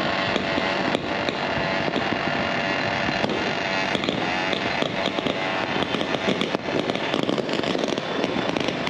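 Dense, continuous din of firecrackers and fireworks going off all across the city, with many sharp pops and bangs over a steady crackling roar.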